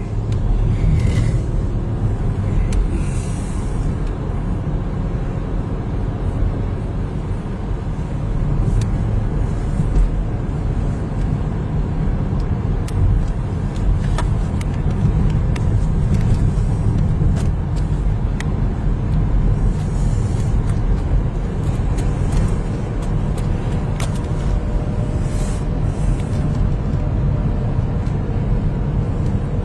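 Steady low rumble of a car running, with a few faint clicks scattered through it.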